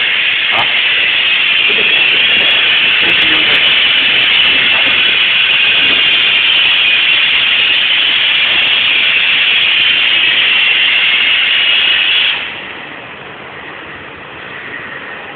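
Frame stiffness test rig running with a loud, steady hiss, which drops off sharply about twelve seconds in.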